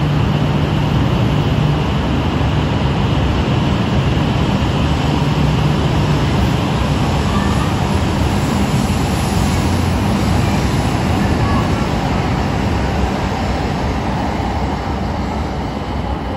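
E8 series Shinkansen train pulling out of the station, its seven cars rolling past close by with a steady rush of wheel and running noise over a low hum. The noise eases near the end as the last car draws away.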